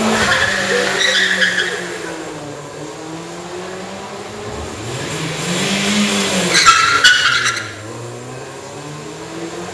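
Toyota Vitz race cars launching one after another from a standing start. The first pulls away with a short tyre squeal right at the start. About six seconds in, a second car's engine revs up and it leaves with a louder tyre squeal that stops about a second later.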